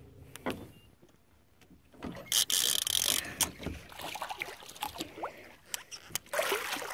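Water splashing beside a boat hull as a hooked wels catfish turns at the surface, with scattered knocks and clicks; the loudest splash comes about two and a half seconds in.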